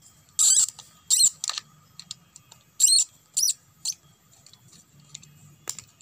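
Hand work on the parts of a disassembled angle grinder: about five short, high-pitched scraping squeaks, with light clicks between them.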